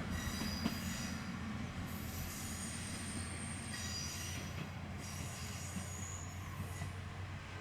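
Diesel railcar running along the track: high-pitched wheel squeal comes and goes several times over a steady low rumble, and the sound fades slowly.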